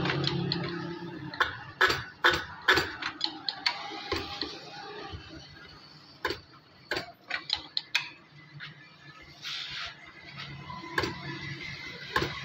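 Sharp metallic clicks and knocks from hand work on a diesel injector nozzle tester as the injector is fitted and set: a quick cluster about one and a half seconds in, then scattered single clicks, with a short hiss a little past the middle.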